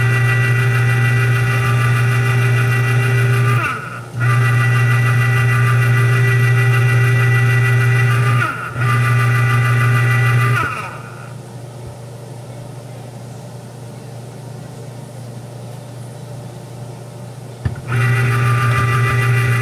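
Electric citrus juicer's motor humming steadily as fruit is pressed onto its spinning reamer cone. It stops briefly twice, falls quiet for several seconds past the middle, then starts again near the end.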